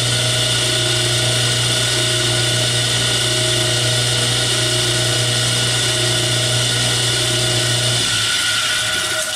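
Atlas 10-inch lathe running steadily with a hum and whine while a center drill spots the end of a grease cap held in the chuck. About eight seconds in the hum drops and the lathe winds down toward a stop.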